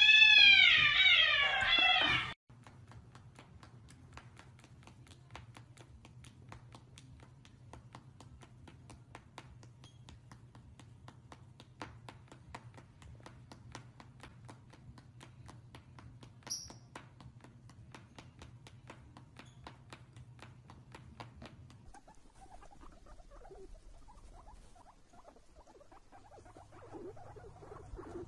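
A cat gives one loud, drawn-out meow that rises and falls in pitch and breaks off after about two seconds. After it comes a long stretch of faint, rapid clicks over a low hum.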